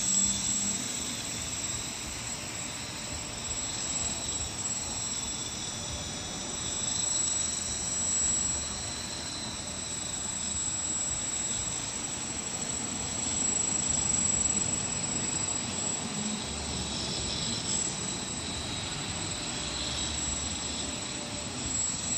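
X-Aircraft quadrotor's electric motors and propellers whining steadily in flight, growing louder and fainter as the drone moves nearer and farther.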